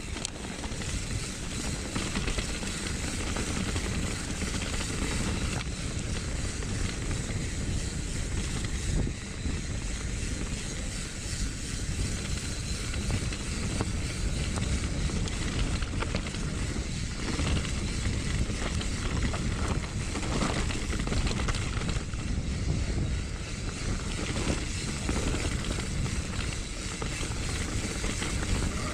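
Wind rushing over the microphone and rolling noise from riding fast downhill, with a few brief knocks.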